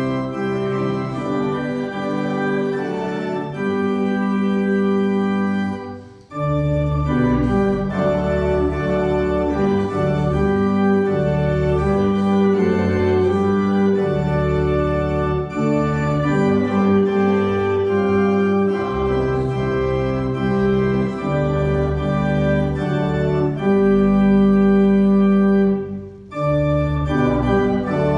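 Church organ playing slow, sustained hymn chords with a full bass, pausing briefly about six seconds in and again near the end.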